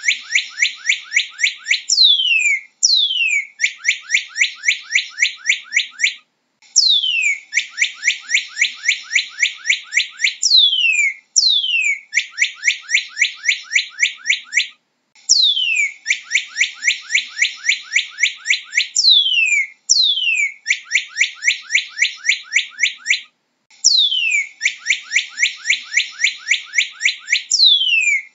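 Northern cardinal singing: repeated songs, each opening with a long whistle sliding down in pitch, then a fast run of short, clear down-slurred notes, about seven a second, with brief pauses between songs.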